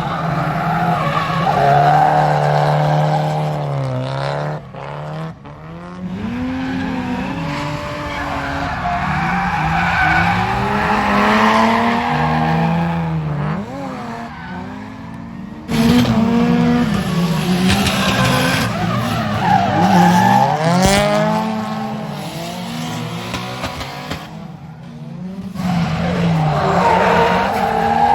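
Drift cars sliding with tyres squealing, engines revving up and down over and over as the throttle is worked through the slide. The sound changes abruptly twice, about halfway through and near the end.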